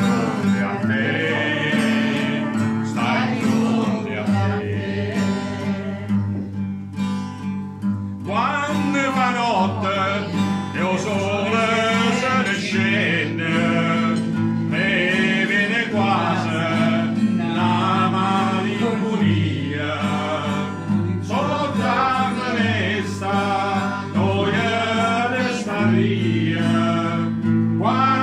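A man singing and playing guitar, the voice carrying the melody over held chords that change every few seconds.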